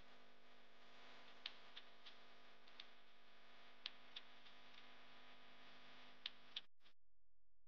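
Near silence: faint steady background hiss with a few scattered, irregular faint ticks. The sound cuts out completely shortly before the end.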